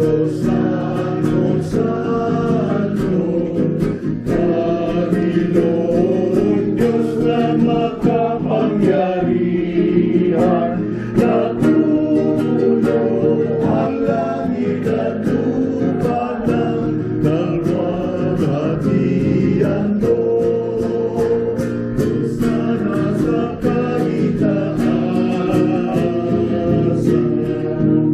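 A group of voices singing a hymn to strummed acoustic guitar.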